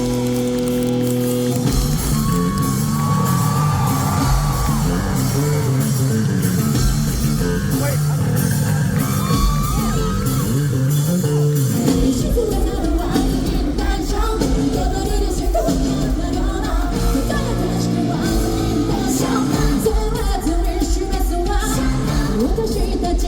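Live rock band playing in a large hall, recorded from the crowd: a held keyboard chord, then drums, bass and guitars come in about two seconds in, with singing and shouts from the audience.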